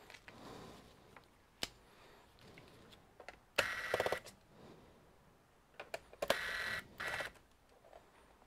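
Corded electric screwdriver whirring in two short bursts of about a second each as it backs out screws from a laptop's plastic bottom case, with a few light clicks and taps between.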